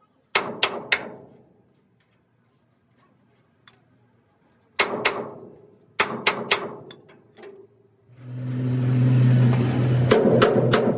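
Hammer blows on steel in quick groups of two or three, each ringing briefly. A steady hum with a low tone swells in about eight seconds in and holds to the end.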